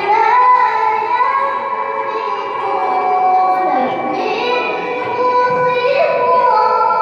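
A girl's high voice reciting the Quran in melodic tilawah style, holding long high notes with ornamented slides and turns between them.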